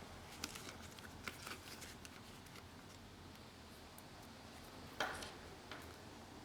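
Light handling sounds of an iPad keyboard overlay and its packaging: a cluster of small clicks and taps in the first two seconds, then one louder rustling scrape about five seconds in.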